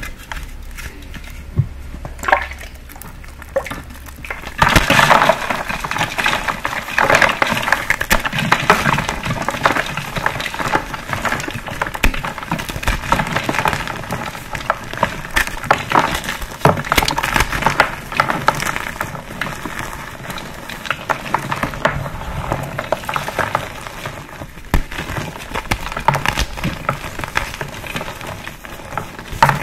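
Dried blocks of green pasted gym chalk being crushed: a few faint isolated clicks at first, then from about five seconds in a dense, continuous crunching and crackling as the chalk crumbles.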